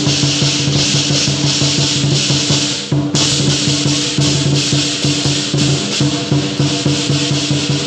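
Lion dance percussion: a drum beaten rapidly with cymbals crashing continuously over it, the cymbals dropping out for a moment about three seconds in.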